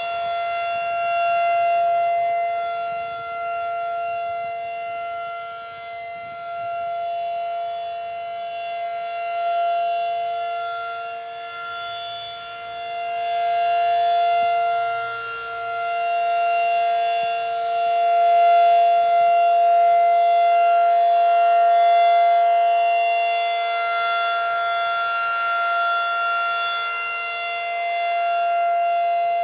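Federal Signal 2001-SRN rotating outdoor warning siren sounding a full alert: a steady, unwavering wail that swells and fades in loudness over several seconds at a time as the rotating head sweeps past.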